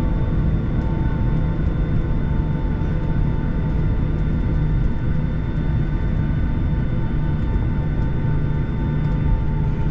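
Boeing 757-300 jet engines at taxi power heard from inside the cabin over the wing: a steady rumble with a steady high whine on top.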